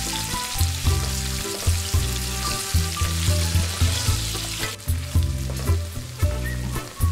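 Paneer cubes sizzling as they fry in hot oil in a pan, turned with a spatula, over background music with a steady bass beat. The sizzle drops away abruptly about two-thirds of the way through, leaving mostly the music.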